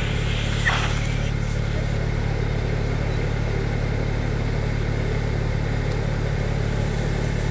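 A BMW car engine idling steadily: a low, even hum that does not change.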